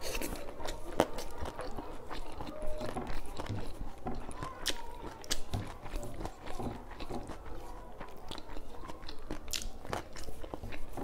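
Close-miked chewing of a handful of rice and food, with irregular wet mouth clicks and crunches.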